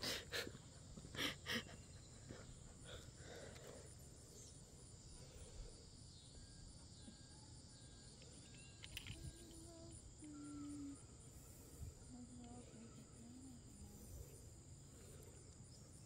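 Faint, steady high-pitched chirring of insects such as crickets, with a few sharp clicks in the first two seconds.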